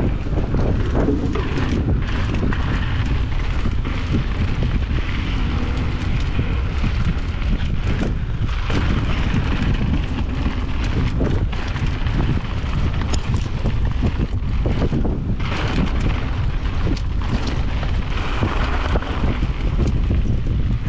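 Wind buffeting the microphone of a mountain bike riding down a loose, rocky trail, with irregular knocks and clatter of tyres and bike over rocks.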